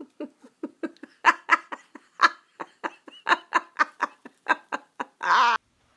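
A woman laughing at the dog: a quick run of short breathy giggles, then one longer voiced laugh near the end.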